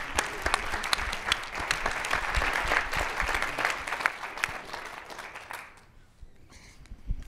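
Audience applauding: dense clapping that dies away about three-quarters of the way through, followed by a couple of soft low thumps near the end.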